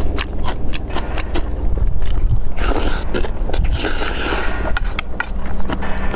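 Close-miked eating: kimchi being bitten and chewed, with many sharp crunches and clicks, over a steady low rumble. A louder rush of noise comes in the middle.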